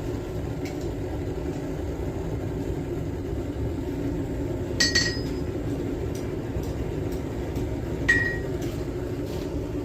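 Two sharp metallic clinks of steel striking steel, about three seconds apart, each ringing briefly, over a steady low rushing noise in the blacksmith's shop.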